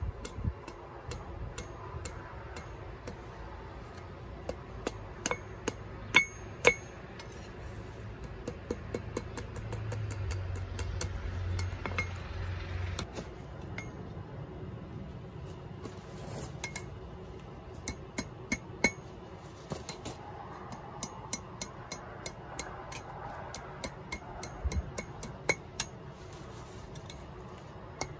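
Hand hammer striking hot wrought iron held in tongs on an anvil: irregular blows, at times in quick runs, each with a bright ringing clink.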